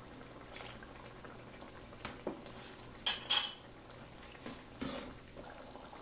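Steel kitchen utensils clinking and knocking against a cooking pan as lemon juice is spooned into a curry. There are a few scattered clinks, the loudest being two sharp ones close together about three seconds in.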